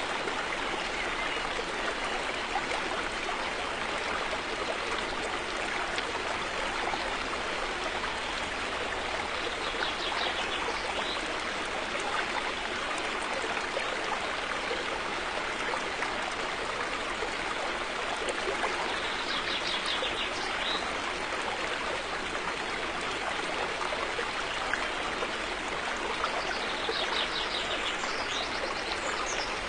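River water flowing and rushing steadily over stones, with a few faint high bird chirps over it now and then.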